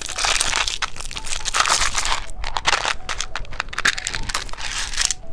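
Crinkly candy packaging being handled and unwrapped, with irregular rustling crackles.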